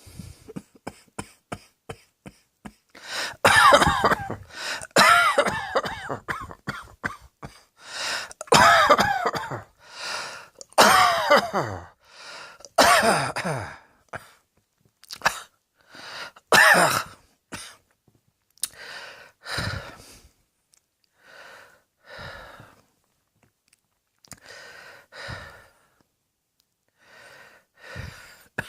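A person coughing over and over. Short light coughs come first, then loud coughing fits from about three seconds in to about fourteen seconds, then softer, more spaced-out coughs in the second half.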